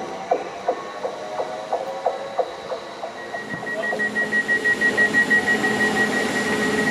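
Electric train moving slowly, its wheels clicking regularly, about three times a second, with a squeal. From about three seconds in, a rapid pulsing high-pitched beep and a low rising hum take over.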